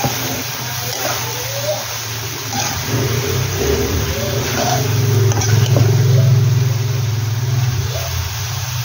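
A spatula stirring and scraping macaroni in a metal pan, with scattered short scrapes against the pan, over a low engine-like hum that swells through the middle and fades near the end.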